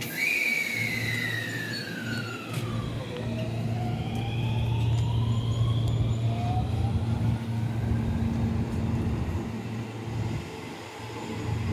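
JR West 223 series electric train pulling out of the station: its inverter-driven traction motors whine, one tone falling over the first few seconds and then other tones rising as it gathers speed, over a steady low hum.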